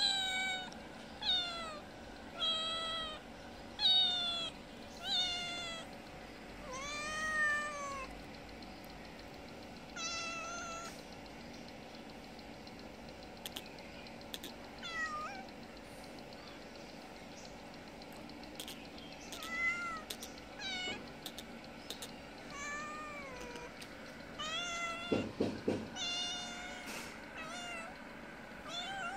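Cat meowing over and over, begging for food: short meows that rise and fall in pitch, about one a second at first, then more spaced out, with faint clicks in between.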